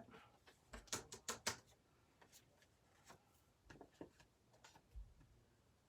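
Faint, scattered short scratches and taps: a brush being worked over a paper card to rub off loose gold leaf.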